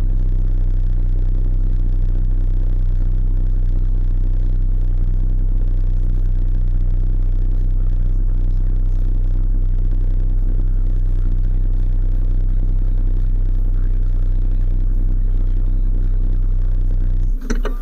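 ATV engine idling close by, steady and unchanging, then shut off just before the end.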